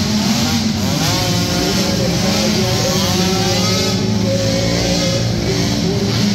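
Several small 50–90cc youth quad engines racing together, their notes overlapping and rising and falling as the riders throttle up and back off.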